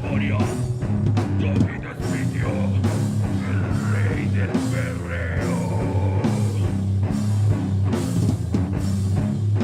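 Live heavy metal band playing, with a pounding drum kit, distorted electric guitars and bass.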